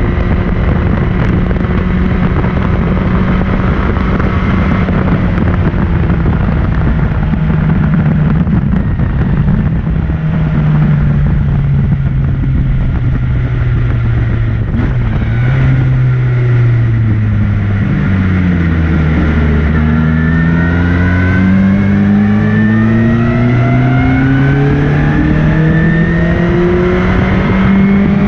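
Maserati Birdcage race car engine heard from its open cockpit at speed. The engine note sags gradually and bottoms out about two-thirds of the way through, then climbs steadily as the car accelerates hard.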